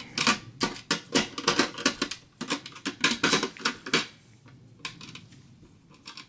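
Rapid, irregular small metallic clicks and taps as a Torx screwdriver turns out the screws of a steel drive caddy. The clicks are dense for about four seconds, then thin out to a few faint ones.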